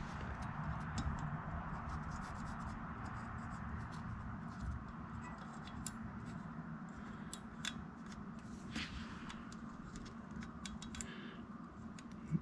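Light clicks and scrapes of small metal parts being handled: the vanes in a variable-vane turbocharger's nozzle ring. A sharper click comes near the end, over a steady low room hum.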